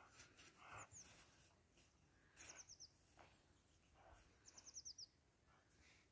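Faint small-bird calls: three short runs of quick, high chirps that slide downward, each run four or five notes, over otherwise near silence.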